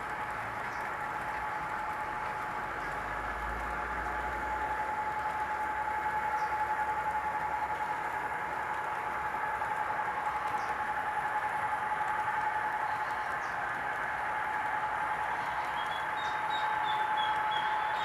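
GT22 diesel-electric locomotive running steadily, a constant whine over an even rushing noise. A bird chirps over it near the end.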